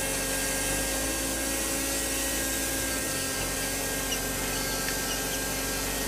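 Small electric motor on a toy tractor running steadily, spinning a plastic propeller at the front that blows dust off the ground: an even, unbroken motor whine.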